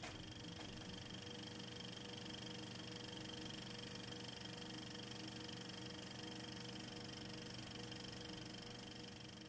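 Faint steady drone made of several held tones over a light hiss, fading in at the start and fading out at the end.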